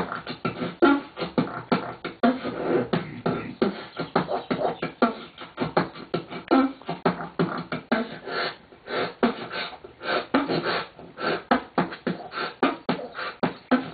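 Human beatboxing with a hand cupped at the mouth: a fast, unbroken run of percussive mouth hits, several a second, with short low hummed notes mixed in.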